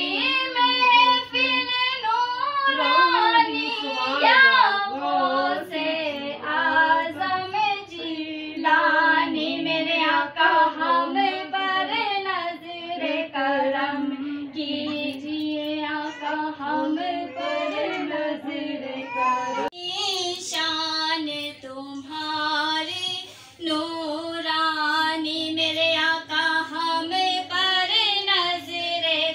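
A young girl singing a naat, a devotional poem in praise of the Prophet, solo and without instruments, in long held notes with a wavering ornamented line.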